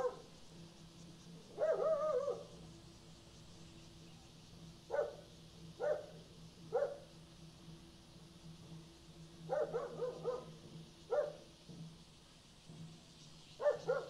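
A dog barking at irregular intervals, mostly single short barks with a quick run of several in the middle, over a steady low hum and a faint high hiss.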